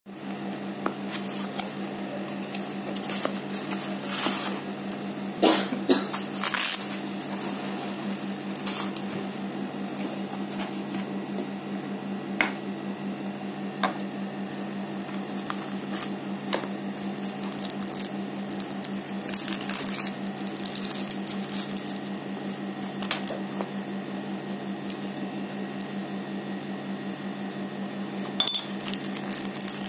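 Unboxing handling noise: a cardboard box and its packaging rustling, and small plastic and metal items clicking as they are picked up and set down on a hard tabletop, over a steady low hum. The sharpest clicks come about five to seven seconds in.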